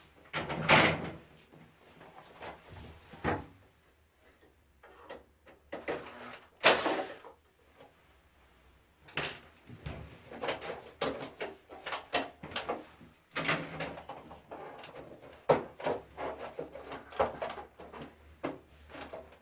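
Parts of a wall-mounted air conditioner being handled and worked loose during disassembly: irregular clicks, knocks and short scraping sounds.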